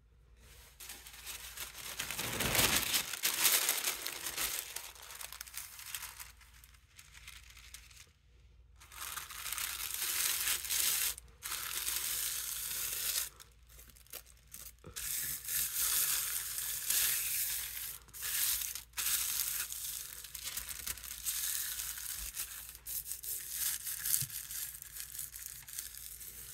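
Thin Spectra artist tissue paper rustling and crinkling as hands lay it over inked vines on a gel plate and rub it down. The rustling comes in uneven spells with short pauses and is loudest a few seconds in.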